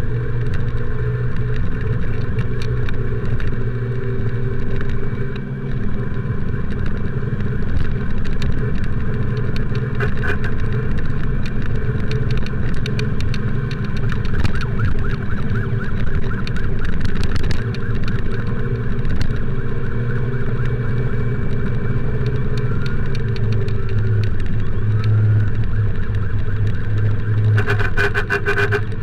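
Motorcycle engine running steadily while riding in traffic, with an emergency siren's rising and falling wail heard in places.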